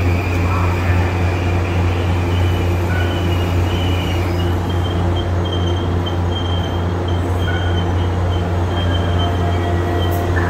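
Metro-North M8 electric multiple unit moving slowly along the platform: a steady low electric hum from its traction and auxiliary equipment, with a thin high whine that comes and goes from about four seconds in.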